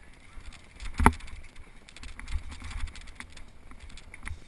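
Mountain bike rolling over a rough trail: scattered clicks and rattles over a low rumble of wind on the camera mic, with one sharp loud knock about a second in.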